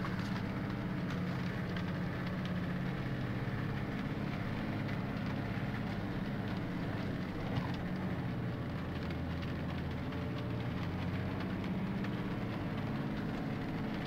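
Off-road 4x4 engine running steadily at low speed over rough meadow ground, heard from inside the cabin, with scattered light ticks of raindrops on the windscreen.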